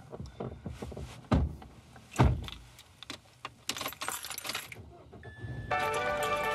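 Scattered clicks and rustling with two heavy low thumps in the first few seconds, then background music starts about five seconds in.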